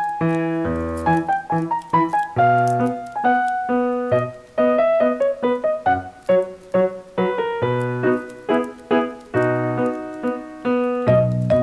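Background piano music: a light melody of struck notes at a steady pace.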